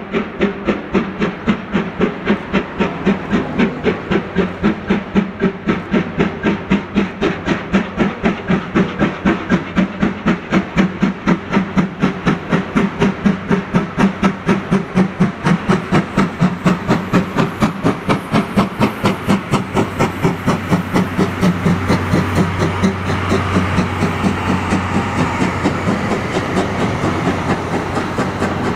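Exhaust of the C11 325 steam tank locomotive chuffing steadily under power, about four or five beats a second, with steam hissing. In the last third the beat fades into the steady rumble of the passing train.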